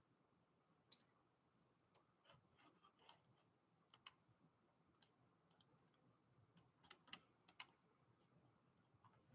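Near silence broken by faint, irregular clicking of computer keys, with a couple of sharper clicks about four seconds in and again near seven and a half seconds.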